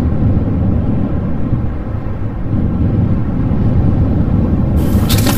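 Wind buffeting the camera microphone: a steady low rumble. A rustling hiss starts near the end.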